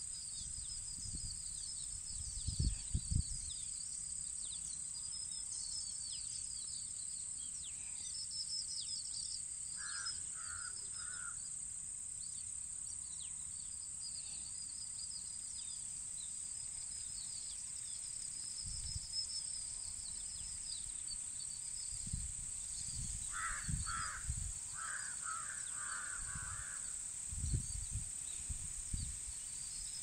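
Rural outdoor ambience: small birds chirping throughout over a steady high-pitched hiss. A crow caws three times about ten seconds in and several more times in the second half. Occasional gusts of wind buffet the microphone.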